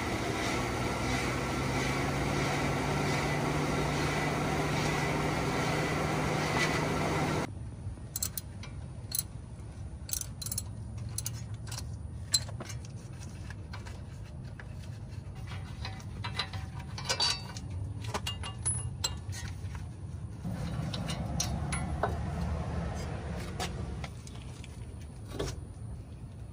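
A steady mechanical hum with a low tone, which cuts off suddenly about seven seconds in. Then quieter scattered metal clicks, clinks and knocks follow as hand tools work on a car's front wheel hub and the hub-and-bearing assembly is handled.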